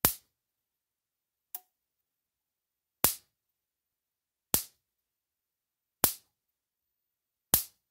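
Speedrite 12000i 12-joule electric fence charger's pulses jumping a small air gap from a ground lead to the hot terminal: a sharp snap about every one and a half seconds, six in all, the second one weaker. The spark shows the charger is putting out a strong shock and working properly.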